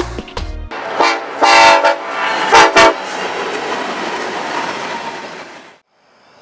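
Music stops, then a Norfolk Southern diesel locomotive's air horn sounds three blasts, followed by the steady noise of the train rolling past, which cuts off abruptly near the end.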